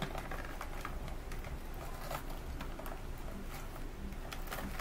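Faint rustling and scattered small clicks of nylon holster straps and Velcro being handled and fitted.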